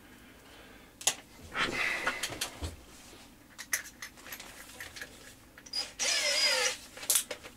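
Clicks and handling noise of tools being picked up, then a cordless drill spun briefly for about a second, its motor whine wavering in pitch as the trigger is worked.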